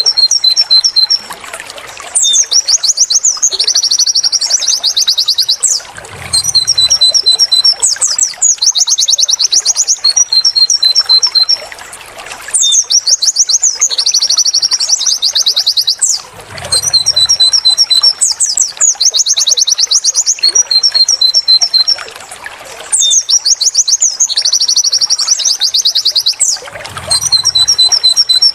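White-eye (pleci) song in the 'wit wit tulit tulit' style: high-pitched rapid trills alternating with runs of short repeated notes. The same phrase sequence loops about every ten seconds, as a recording played on repeat for training cage birds.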